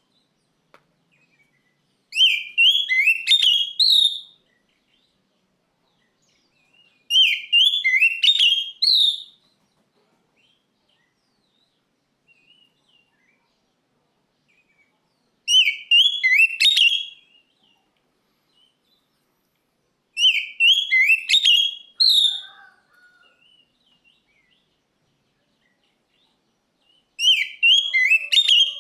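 Oriental magpie-robin (kacer) singing in five separate bursts of rapid notes, each about two seconds long, with silence between them.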